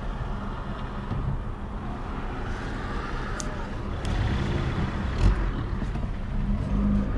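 Car engine and road noise heard from inside a moving car in traffic, a steady low rumble that grows louder about four seconds in. A single short knock comes a little after five seconds.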